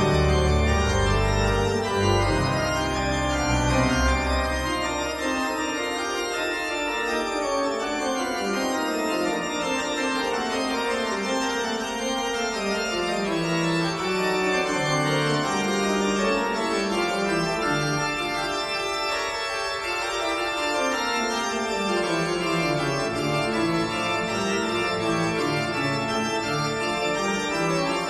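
Instrumental music with long held chords and a bass line that steps downward twice.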